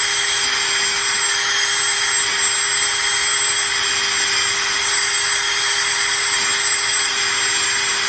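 Motor-driven buffing wheel, loaded with polishing compound, spinning at a steady speed with a constant whine while an eyeglass lens is polished on it.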